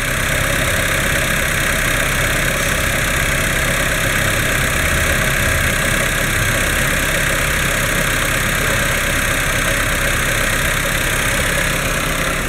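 Alfa Romeo 159 2.2 JTS four-cylinder petrol engine (939A5000) idling steadily on an engine test.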